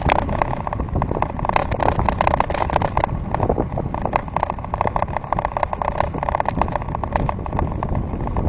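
Bicycle riding along a paved path, heard from a camera on the handlebars: a steady low rumble of tyres and wind on the microphone, with a fast, continuous ticking rattle over it.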